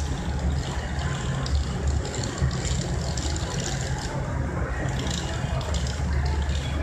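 Diesel engine of an Aizu Railway AT-700/AT-750 railcar running with a steady low rumble as the train creeps into the platform.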